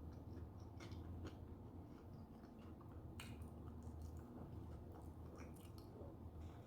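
A person chewing a soft sushi roll close to the microphone, with scattered small wet mouth clicks over a low steady hum.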